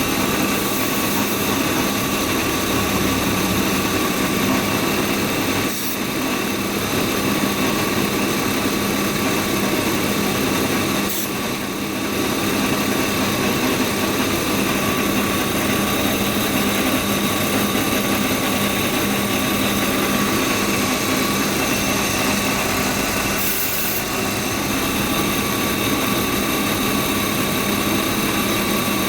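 BMW E36 328i's straight-six engine idling steadily, with a constant hum and hiss and a few brief dips in level around six, twelve and twenty-four seconds in.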